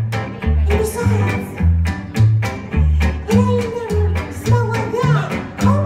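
Live western swing from a small acoustic band: upright bass plays steady notes about two a second under strummed archtop guitar chords, with a gliding melody line on top.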